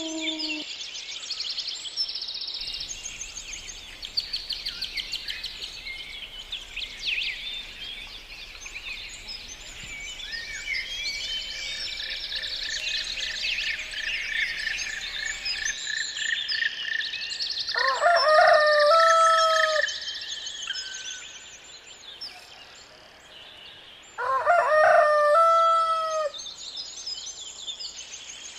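Rooster crowing twice, each crow about two seconds long, the first a little past halfway and the second about six seconds later. Many small birds chirp continuously underneath.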